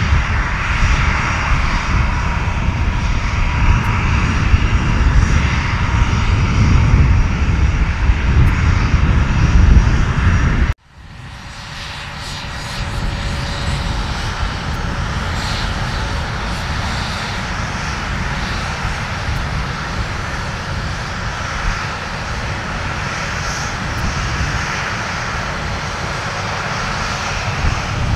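Vought F4U Corsair's 18-cylinder Pratt & Whitney R-2800 radial engine at takeoff power, a loud low rumble that grows louder. About eleven seconds in it cuts off suddenly to an A-10 Thunderbolt II's twin General Electric TF34 turbofans running steadily as it taxis, a quieter whine and hiss.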